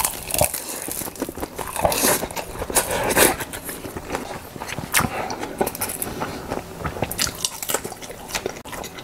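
A man chewing mouthfuls of food close to the microphone, with many irregular sharp clicks of biting and mouth noise.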